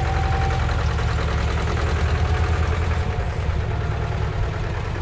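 Diesel engine of a Grove all-terrain mobile crane running steadily at low revs as the crane rolls slowly forward, the sound mostly low-pitched.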